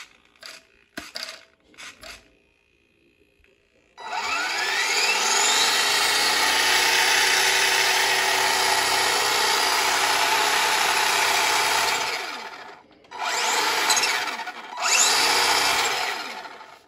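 Small electric RC truck motor and drivetrain revving up in a rising whine and held at speed for about eight seconds, then let off and revved twice more in shorter bursts near the end. A few light clicks come before it starts.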